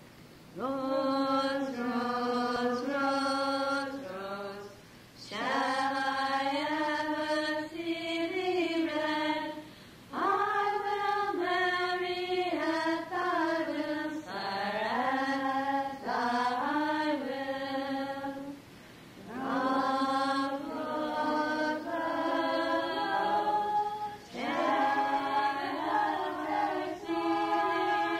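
Unaccompanied group of voices singing a slow melody, in phrases of about four to five seconds with short breaths between them.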